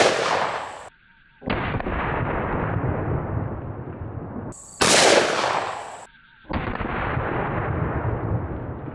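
500 S&W Magnum revolver firing a 700 grain hard cast bullet: a sharp, loud report at the start and again about five seconds in. After each report comes a deep, drawn-out, slowed-down version of the shot from a slow-motion replay.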